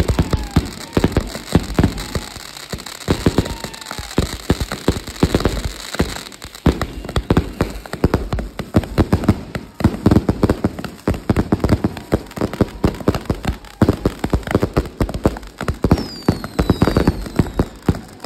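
Many fireworks going off at once in a dense, rapid crackle of pops and bangs, with a few short whistles gliding in pitch, including falling ones near the end.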